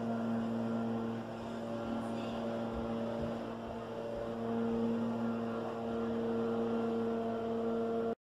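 A steady hum with two strong steady tones, a little louder in the second half, starting and cutting off abruptly.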